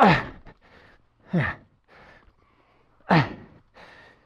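A man breathing hard with effort: three loud, groaning exhalations that fall in pitch, about a second and a half apart, with quieter breaths between. He is out of breath from struggling to get an enduro bike through on steep ground.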